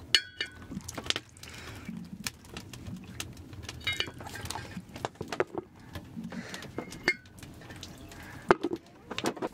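Hands being washed under a hanging washstand: the metal valve rod clinks as it is pushed up, letting water trickle and splash over the hands into a basin below. Ringing clinks come near the start and again about four seconds in, among lighter clicks and knocks.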